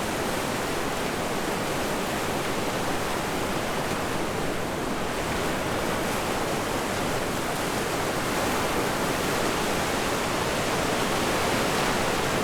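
Steady rush of wind and surf on a beach, an even noise with no distinct events.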